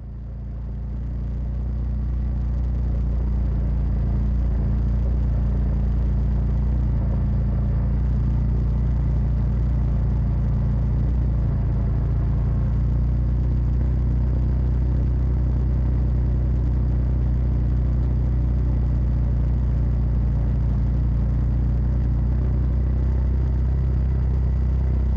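Side-by-side off-road vehicle's engine running at a steady speed, a low, even rumble that fades in over the first couple of seconds.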